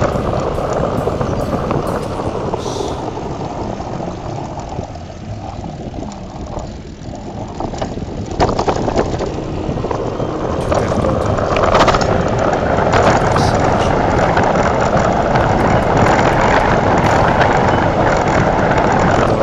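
A vehicle driving along a road: steady engine and road noise, dipping about six seconds in and growing louder again from about eight seconds.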